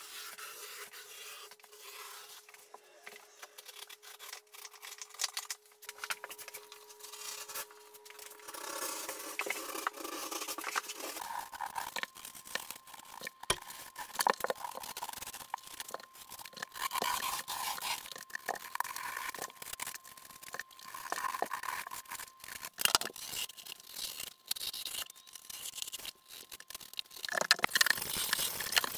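Utility knife with a Lenox Gold titanium-edge blade cutting channels into drywall along the butt joints: a long run of short, irregular scraping and tearing strokes as the blade scores the paper face and gouges the gypsum. A faint steady tone sits underneath.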